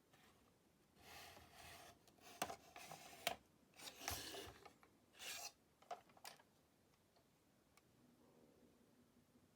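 Handling noise: rubbing and scraping with several sharp clicks, bunched between about one and six and a half seconds in, then near silence.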